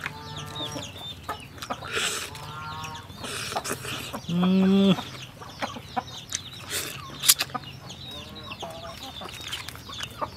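Chickens clucking, with one loud, drawn-out call about four and a half seconds in, and repeated high, falling chirps. Short clicks of chewing and lip-smacking from eating run beneath.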